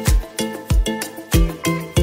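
Background music with a steady beat of deep bass thumps and pitched notes above them.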